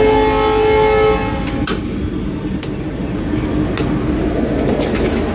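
Diesel locomotive horn sounding once for about a second and a half, a chord of several steady tones, over the rumble of the train. The rumble of the train then carries on, with a few sharp clicks from the wheels and coaches.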